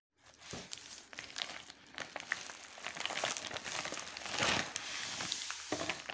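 Plastic packaging crinkling and crackling as a clear zip bag of plastic linking cubes is pulled out of a bubble-lined padded mailer, with many small sharp crackles, loudest about four and a half seconds in.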